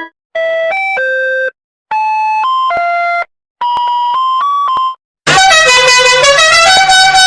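Edited sound-effect variations of a short electronic jingle made of stepped tones. Three separate phrases of about a second and a half each play with silence between them. Then, about five seconds in, a much louder, denser and harsher version of the melody starts.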